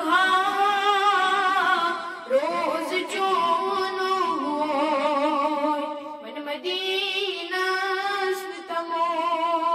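A boy singing a Kashmiri naat unaccompanied into a microphone, a high voice holding long notes with a wavering vibrato.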